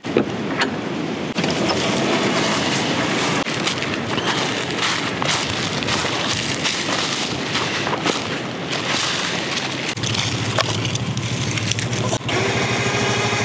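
Strong wind rushing and buffeting over the microphone. A vehicle engine's low, steady drone comes in about ten seconds in.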